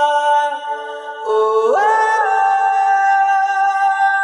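Background song: a voice holding long wordless sung notes, stepping up to a higher note about halfway through.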